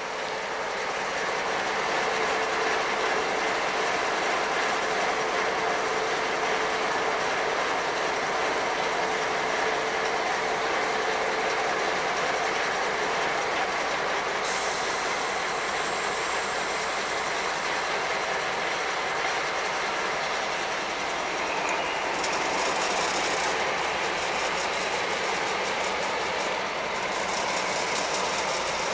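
Two DB Class 218 diesel-hydraulic locomotives running while standing, their engines and auxiliaries giving a loud, steady mechanical din while they are readied for service. An extra high hiss comes in about halfway through and changes a few times toward the end.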